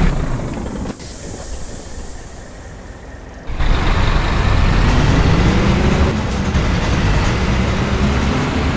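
Bus diesel engine, with a truck-like note, starting up loud about three and a half seconds in after quieter background noise, its pitch rising slightly as it pulls away and then holding steady.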